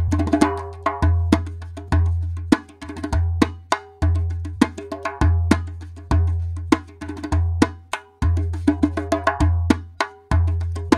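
Darbuka loop playing a Middle Eastern rhythm in 7/8 at 100 BPM. Deep dum strokes that ring on alternate with sharp, ringing tek strokes in a steady repeating pattern.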